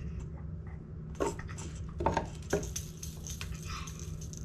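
Plastic baby toys knocking and clattering against a wooden box three times, about a second, two seconds and two and a half seconds in, over a steady low hum.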